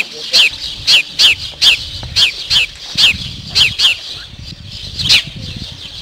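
A small bird chirping over and over, short high chirps that each drop in pitch, about two a second at an uneven pace.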